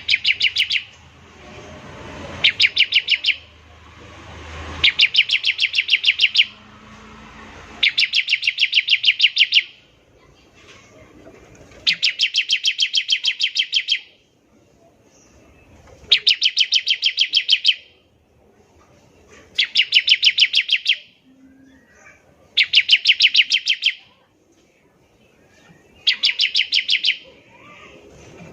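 Bar-winged prinia (ciblek) singing its machine-gun 'ngebren' song: loud bursts of rapid, stuttering high notes, each burst a second or two long, repeated about every three and a half seconds.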